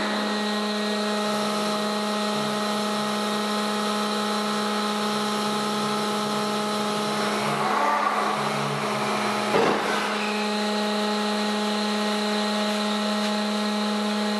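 Hydraulic winch and its hydraulic drive running steadily under a heavy steel-plate test load as the load is lowered. It makes a constant hum of unchanging pitch, with a brief louder surge about nine and a half seconds in.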